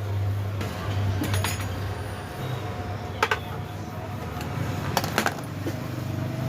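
A few sharp metallic clinks from mixer-grinder jar parts being handled, with two close together near the end, over a steady low hum.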